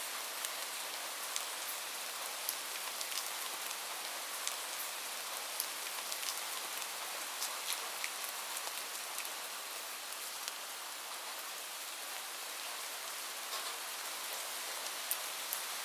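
Light rain falling steadily, a soft even hiss with scattered individual drops ticking sharply on a hard surface.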